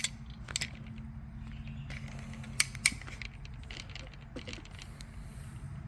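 Scattered light metallic clicks and clinks, two sharper ones together near the middle, over a steady low hum; no engine is running.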